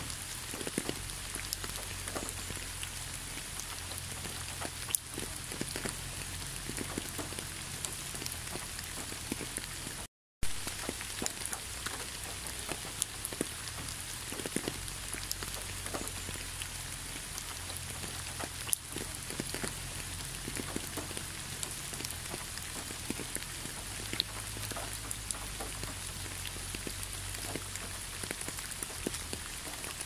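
Steady rain, with many separate drops heard as small ticks over an even hiss. It cuts out completely for a fraction of a second about ten seconds in.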